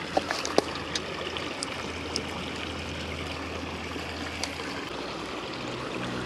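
Creek water running and trickling steadily, with a few light clicks in the first couple of seconds.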